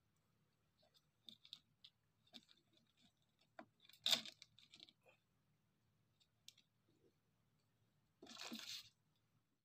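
Faint, scattered clicks and light knocks from fishing rods and tackle being handled in a wooden boat. The sharpest click comes about four seconds in, and a short rustle follows near the end.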